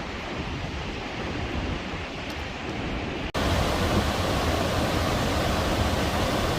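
Steady rush of whitewater, an even roar with no distinct events. About three seconds in it cuts abruptly to a louder, brighter rush.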